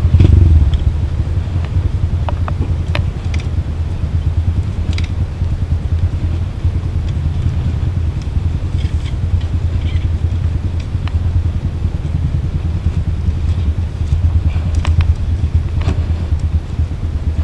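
Steady low rumble of riding noise on a trail descent, with scattered sharp clicks and rattles.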